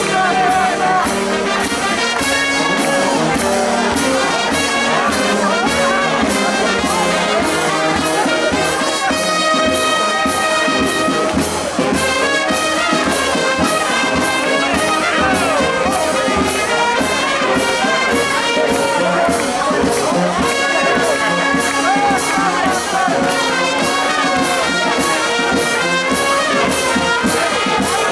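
Brass band playing a tune over a steady beat, brass carrying the melody.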